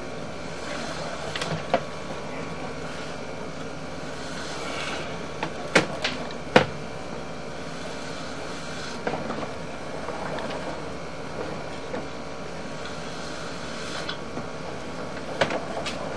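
Sewer inspection camera being pulled back out of the line, its push cable feeding back onto the reel: a steady mechanical running noise with a few sharp knocks, the loudest about six and a half seconds in.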